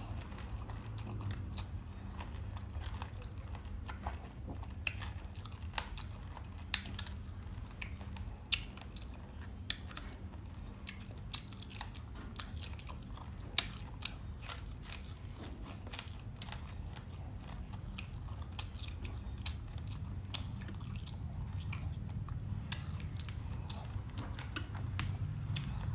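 Close-up eating sounds: steady chewing with sharp, crisp crunches from bites, scattered irregularly throughout, over a steady low hum.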